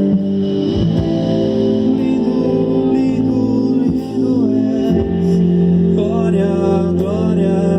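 Live worship band playing a slow song: sustained keyboard chords and bass under electric guitar, with a melodic line bending in pitch over them.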